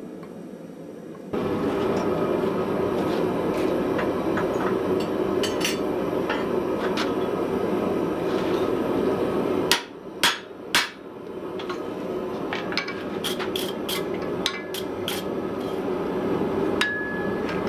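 Hammer blows on red-hot steel on an anvil, forging a ball peen hammer head: three loud strikes about ten seconds in, then a quick run of lighter blows. Under them, from about a second in, the steady rushing hum of a gas forge running.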